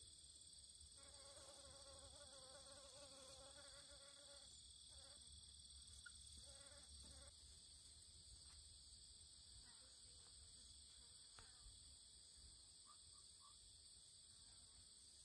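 Faint insect sounds: a flying insect's wavering buzzing whine for about three seconds, then in short snatches, over a steady high-pitched insect drone.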